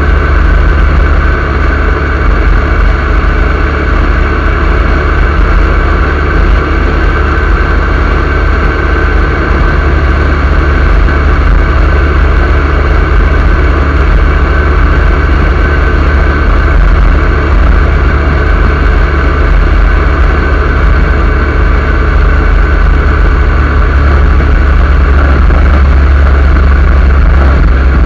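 Motorcycle at steady road speed, its engine running evenly under a loud, constant wind rush with a heavy low rumble on the bike-mounted microphone. The rider's loose shirt is flapping in the wind.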